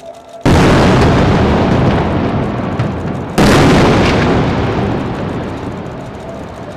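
Two large explosions from strikes on city buildings, about three seconds apart. Each one starts suddenly and dies away slowly over a few seconds.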